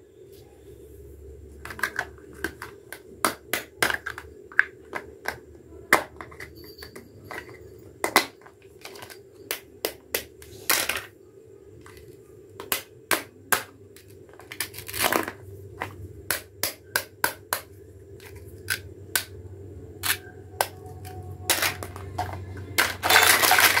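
Plastic toy fruit and vegetable pieces and a plastic cutting board clicking and knocking as they are picked up, set down and tapped together on a tabletop, in irregular single taps over a low steady hum. Near the end a louder, even rushing noise sets in.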